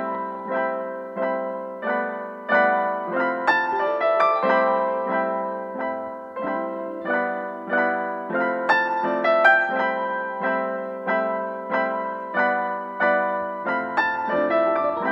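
Background piano music: a gentle melody of single struck notes and chords, about two a second, each fading away.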